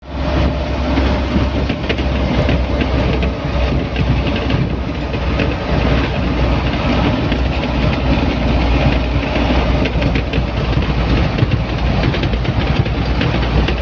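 Steady running noise of a vehicle heard from inside its cab while driving: a constant low engine and road rumble with scattered light rattles.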